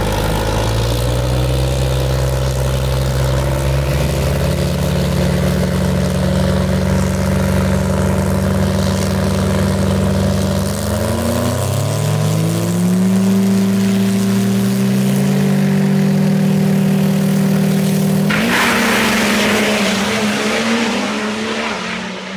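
Cummins-powered diesel drag car's engine held at the starting line, its pitch stepping up twice as the revs are raised to build boost. About eighteen seconds in it launches into a loud full-throttle run that fades as the car pulls away down the track.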